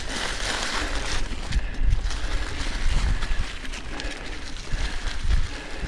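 Mountain bike riding up a leaf-covered trail: tyres rolling over leaves and the bike rattling, with wind buffeting the microphone in uneven low gusts.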